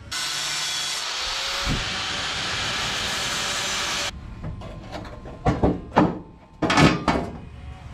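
Angle grinder with a cut-off disc cutting the edge of a sheet-metal trailer fender: a loud, steady hiss that cuts off suddenly about four seconds in. Then a few sharp knocks as the trimmed fender is pushed into place in the engine bay.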